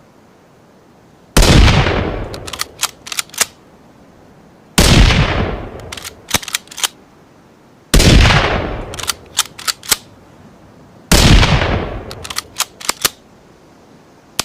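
Ruger American bolt-action rifle sound effect: four shots about three seconds apart, each with a long fading echo. Each shot is followed by a quick run of four or five sharp clicks as the bolt is cycled.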